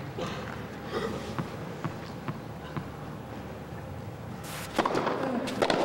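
Tennis ball bounced on a clay court several times before a serve, as separate sharp knocks over steady stadium crowd murmur. A louder burst of noise comes about five seconds in.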